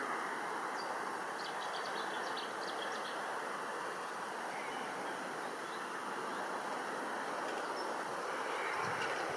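Steady outdoor background noise, an even rushing hiss, with faint high bird chirps between about one and three seconds in.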